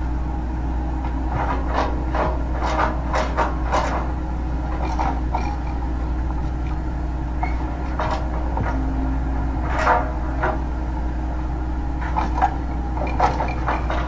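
Excavator engine running with a steady low hum, with irregular short knocks and scrapes as its bucket digs through wet soil and stones.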